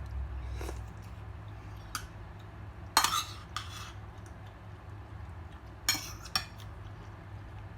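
A few scattered clinks and knocks of dishes and utensils on a plate during a meal, the loudest about three seconds in, over a low steady hum.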